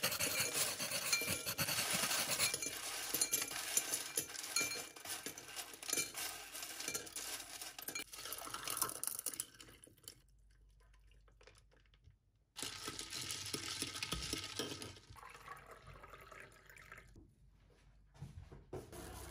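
Ice cubes clattering and clinking into a tall drinking glass as they are shaken out of a plastic ice tray, with short glassy rings among the knocks. After a brief quiet gap, liquid is poured over the ice in the glass.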